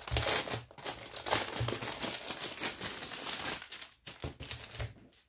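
Plastic wrapping on a rolled diamond-painting canvas crinkling as it is handled and lifted, dense for the first three seconds or so, then softer rustles near the end.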